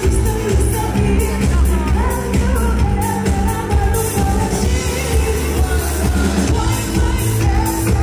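Live band playing a Hebrew pop dance song with a female lead vocalist singing over heavy bass and a steady beat. It is recorded through the camera's own microphone, unmixed, so it sounds loud and distorted.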